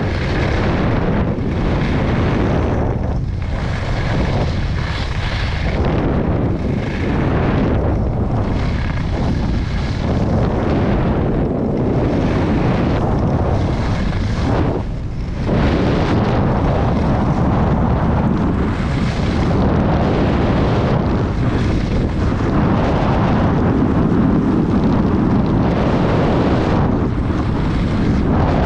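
Wind buffeting a helmet-mounted action camera's microphone during a fast ski run, mixed with the scrape of skis carving on groomed snow. The rush is steady and loud, swelling and easing every few seconds.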